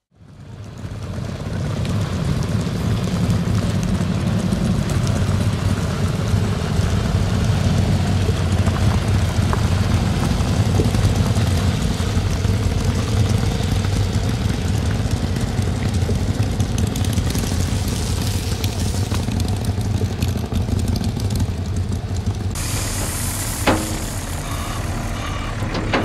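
Motorcycle engine running at a steady speed, fading in over the first two seconds, with a single sharp click near the end.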